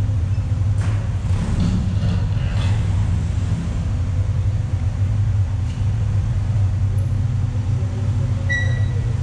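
Side-by-side UTV's engine running steadily while driving, a continuous low drone. A short high-pitched tone sounds near the end.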